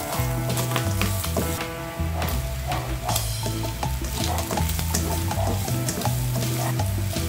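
Ground beef with garlic and onion sizzling in a nonstick frying pan as a spatula stirs and scrapes through it, under background music with a steady bass line.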